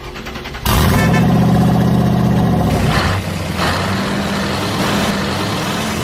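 Truck engine sound that jumps to a loud rev about a second in, holds for about two seconds, then settles to a steadier running hum.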